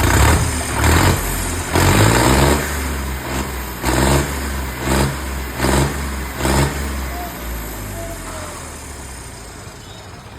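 Tractor engine with a newly fitted silencer being revved in quick blips, about seven of them in the first seven seconds over a steady running note. It then settles and quietens near the end.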